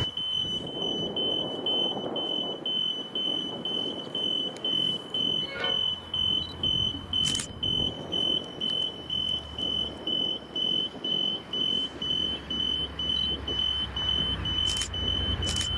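Electronic warning beeps, a high single tone repeating about three times every two seconds, typical of a railway crossing alarm sounding for an approaching train. Under it, from about halfway through, the low rumble of an approaching V/Line diesel locomotive grows louder.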